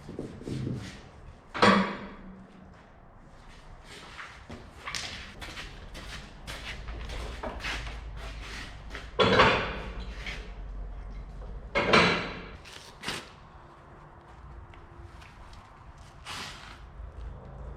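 Irregular knocks and clanks of hands-on tie-down work, with a few loud bangs spread through, over a low rumble for much of the time.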